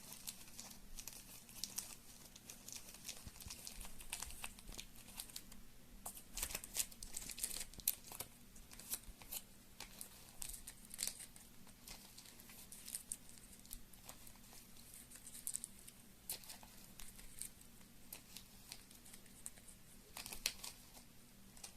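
Hands handling board-game components: faint crinkling and rustling with many scattered light clicks and taps.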